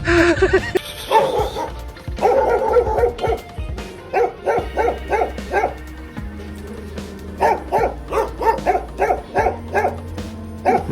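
A dog barking in quick repeated runs of short yaps, about four a second, over background music.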